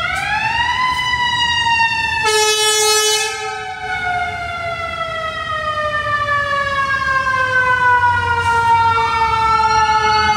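Emergency vehicle sirens, loud. One long wail rises for about a second, then falls slowly and steadily. A short blare sounds about two seconds in, and a second siren starts to rise near the end.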